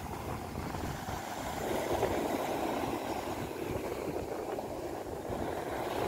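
Wind blowing across the microphone, a steady low rumble, with small sea waves washing onto a sandy beach.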